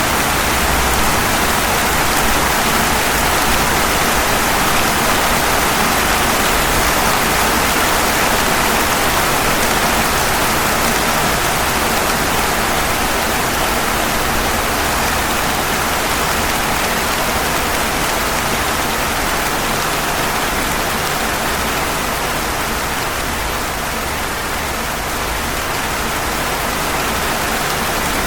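Steady rain falling on pavement: an even, unbroken hiss of drops.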